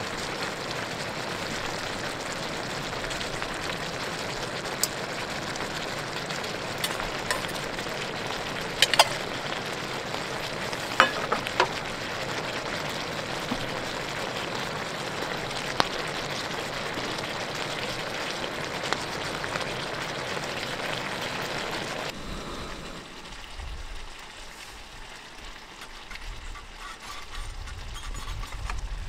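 Squid and pork belly sizzling as they stir-fry in a pan, with a few sharp clicks of a utensil against the pan. About 22 seconds in the sizzling cuts off, leaving a quieter low rumble of wind on the microphone.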